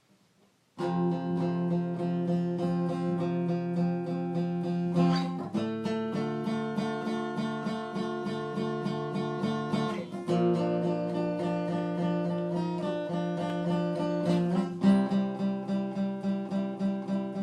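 Acoustic guitar strumming chords, starting about a second in and changing chord every four to five seconds.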